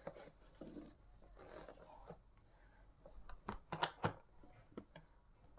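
A laptop's cardboard retail box being handled and turned around by hand: rustling and sliding on the cardboard, then a quick run of sharp taps and knocks a little past the middle, with one more shortly after.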